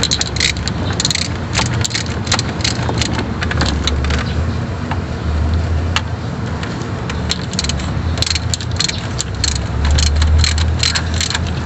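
Ratchet wrench clicking in quick runs as it snugs down the thermostat housing bolts, over a low steady rumble.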